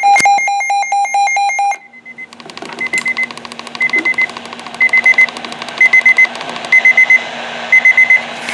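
Weather radio alert alarm: first a loud electronic buzz lasting about a second and a half, then quick high beeps in groups of four, about once a second, over a fast ticking.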